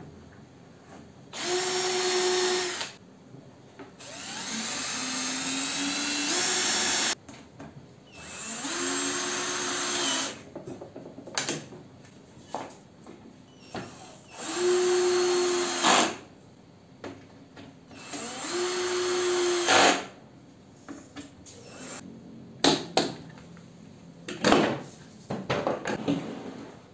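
Cordless drill running in five short bursts of one to three seconds, drilling into the wooden tabletop, its motor tone holding steady in each burst and climbing in pitch during the longest one. Near the end come a few sharp clicks and knocks of bar clamps being handled.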